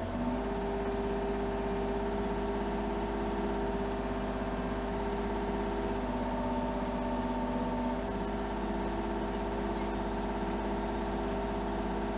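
Mini excavator's diesel engine running steadily while its hydraulics work the boom and bucket. The steady running tone grows stronger for a couple of seconds midway.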